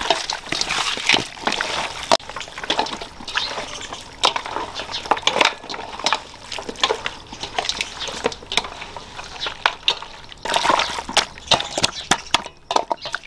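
Wet squelching and slapping of hands kneading oiled, spice-coated pieces of camel head in a large stainless steel bowl, in an irregular stream of short strokes.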